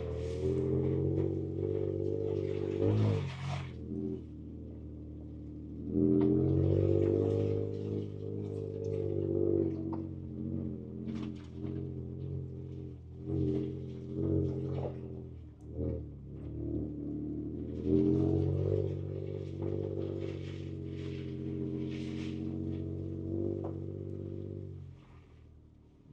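2024 Ford Ranger Raptor's twin-turbo V6 heard from inside the cab, pulling at low revs on a rough trail, with throttle swells about six and eighteen seconds in. Bursts of rattle and hiss come and go over the engine note.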